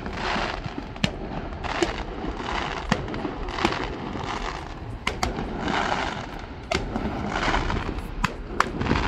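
Distant fireworks display: a string of sharp bangs, roughly one every second, mixed with several bursts of crackling.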